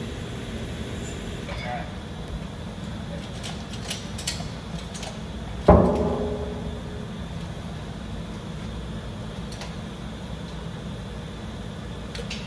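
Engine-rebuild work in a shop: a few light metallic clicks, then one loud metal clank about six seconds in that rings briefly and fades, over a steady low background hum.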